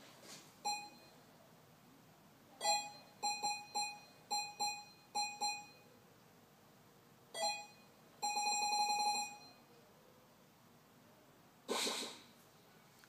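Retro arcade-style synthesized sound effects made with SFXR: short electronic beeps, first one, then a quick run of about eight, then another, followed by a longer buzzing tone about a second long. A short noisy whoosh-like burst comes near the end.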